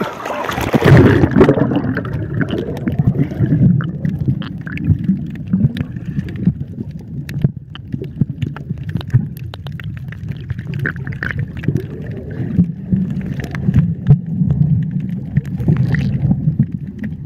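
A camera dunked under the sea surface with a splash about a second in, then the muffled sound of the sea heard underwater: a steady low rumble with scattered clicks and crackles.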